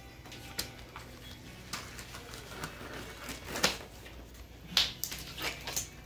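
Scattered rustling and crinkling of a sterile paper surgical pack and gloves being handled, with a few sharp crackles, the loudest about three and a half and five seconds in.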